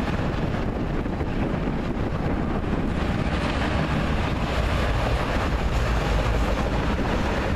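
Steady rumble of a freight train's autorack cars rolling across a bridge, mixed with wind buffeting the microphone.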